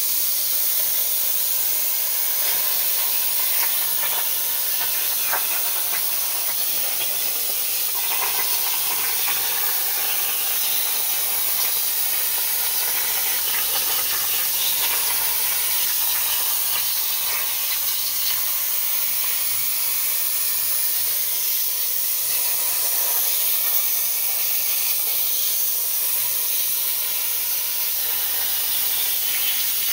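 CNC plasma cutting torch cutting through sheet metal: a steady, even hiss from the plasma arc and its air jet.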